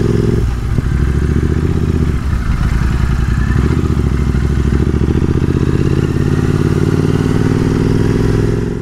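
Royal Enfield 650 parallel-twin motorcycle engine running steadily at cruising speed, rising slightly in pitch over the last few seconds as it pulls harder, with wind rushing over the microphone.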